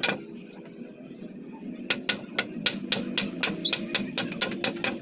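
A quick, irregular run of sharp light taps and clicks, roughly five a second, starting about two seconds in, from close-up hand work on the wooden frame, over a steady low hum.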